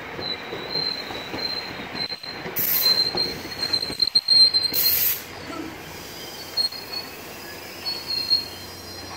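NJ Transit passenger coaches rolling past, their wheels squealing in a thin, high whine that comes and goes. Two louder, harsher screeches come about three and five seconds in.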